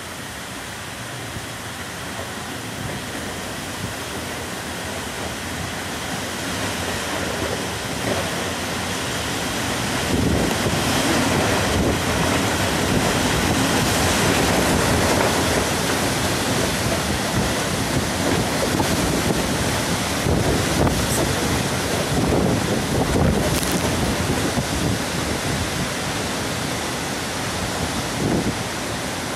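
Torrential thunderstorm rain and wind gusts: a steady rushing that swells louder about ten seconds in as the downpour thickens.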